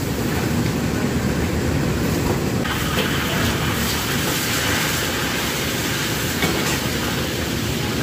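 Commercial wok range running with a steady low rumble of its gas burner and the kitchen extraction hood. A brighter hiss from the steaming wok joins about two and a half seconds in.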